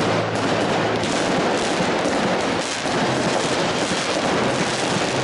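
Fireworks display going off: a dense, continuous volley of bangs and crackling from aerial shells bursting overhead.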